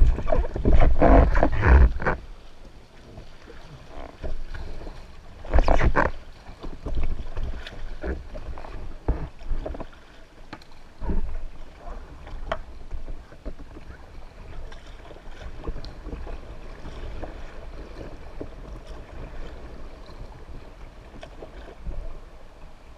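River water splashing and sloshing right beside a camera held at the waterline of an inflatable kayak. The splashing is loudest in the first two seconds and again around six seconds in, then settles into quieter, uneven lapping.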